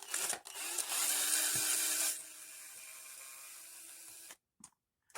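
Power drill driving out a small screw on an RC truck's suspension, running loud for about two seconds, then spinning lighter with a steady whine until it stops about four seconds in.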